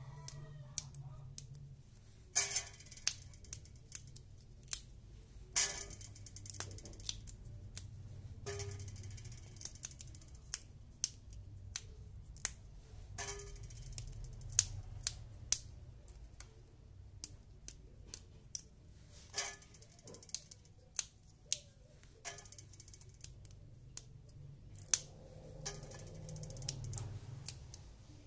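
Fresh green beans being snapped by hand into short pieces: sharp, crisp snaps at an irregular pace, about one to two a second, over a low steady hum.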